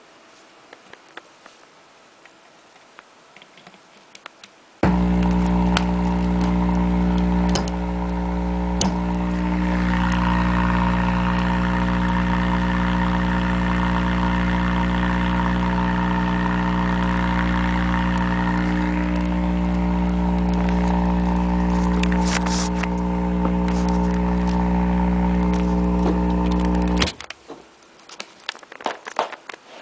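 Subwoofer speaker fed straight from a low-voltage AC adapter, vibrating at the 60 Hz mains frequency: a loud, steady, buzzing power hum. It switches on suddenly about five seconds in and cuts off suddenly near the end.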